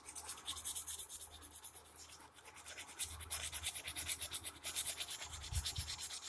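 Waterproof silicon carbide abrasive paper rubbed quickly back and forth over the glossy heat-transfer photo print on a ceramic mug: rapid scratchy strokes, several a second, with a brief pause about two seconds in. The print is being sanded off the glaze.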